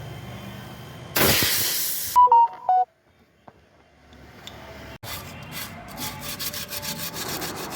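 A short loud hiss and a few brief electronic beeps, then, after a moment's quiet, emery cloth scrubbing a fridge's copper refrigerant pipe in quick back-and-forth strokes, cleaning off oil and dust before brazing.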